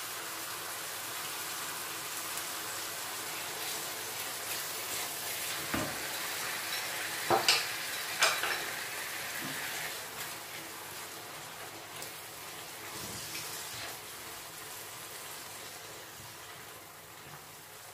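Crushed tomatoes sizzling in hot olive oil in a red enamelled casserole as a spoon stirs them. A few sharp knocks of kitchenware come about halfway through. The sizzle gradually grows quieter toward the end.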